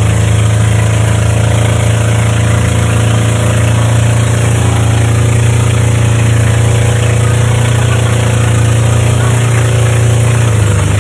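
Inboard engine of a Philippine outrigger boat (bangka) running steadily with a low, even drone, a steady hiss over it.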